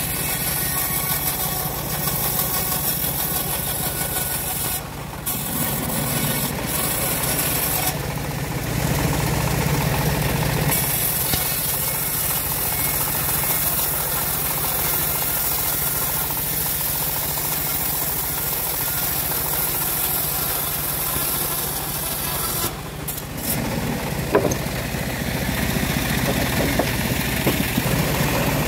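Homemade sawmill bandsaw running steadily while its blade rips lengthwise through a slab of acacia wood, a loud continuous machine drone mixed with the rasp of the cut. The sound shifts briefly a few times as the board is fed through.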